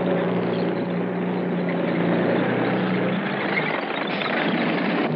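A tank engine running steadily: a constant low drone under an even rushing noise.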